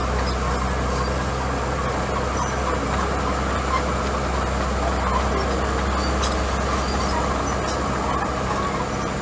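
Small crawler bulldozer's diesel engine running steadily under load as it pushes and spreads crushed gravel.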